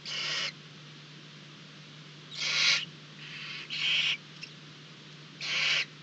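Barn owls in a nest box giving harsh, hissing calls in short bursts of about half a second, five in the space of six seconds. A steady low hum runs underneath.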